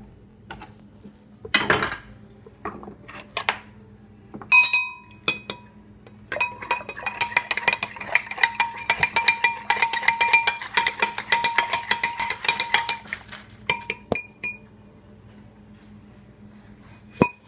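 A spoon stirring fast inside a cup, clinking against its sides several times a second for about seven seconds while the cup rings with each strike. A few single clinks and knocks come before it, and one sharp knock near the end.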